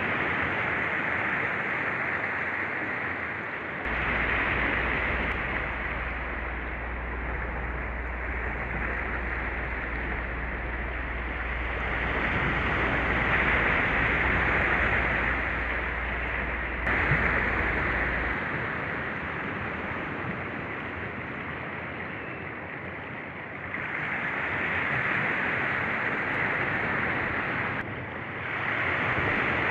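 Small waves breaking and washing up a sandy beach, the surf swelling and easing every few seconds, with a few abrupt jumps in the sound.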